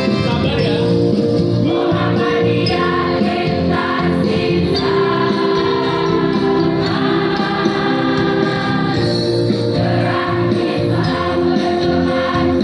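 A large mass choir of girls and women singing together, loud and continuous.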